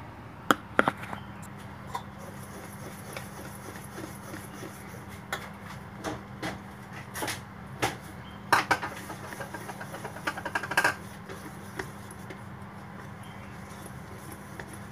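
Wire whisk clinking and tapping against a stainless steel bowl while stirring thick chocolate cake batter, in irregular taps that come in small clusters a little past the middle. A steady low hum runs underneath.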